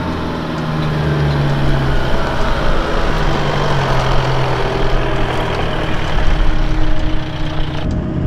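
A four-wheel-drive wagon's engine pulling up a rocky dirt track as the vehicle climbs toward and past the listener. Near the end the sound switches abruptly to a duller engine note.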